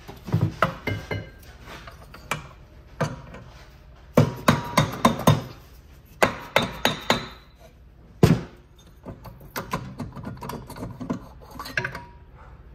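Sharp metal knocks and taps in quick clusters, with some scraping, as the cylinder of a Polaris 488 two-stroke snowmobile engine is worked loose and lifted off its crankcase studs. One single knock a little past the middle is the loudest. Softer taps and rubbing follow near the end.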